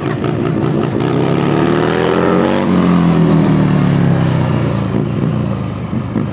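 Motorcycle engine revving up, its pitch climbing for about two and a half seconds and then falling away again.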